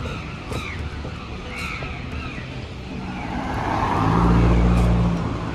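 A motor vehicle passes close by: its engine hum and tyre noise build from about three seconds in, are loudest around four to five seconds in, then fall away. Crows cawing in the background in the first half.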